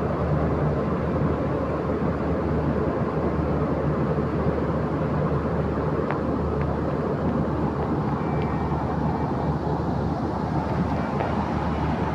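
Steady low rumbling noise of a train running, with a couple of faint clicks about halfway through.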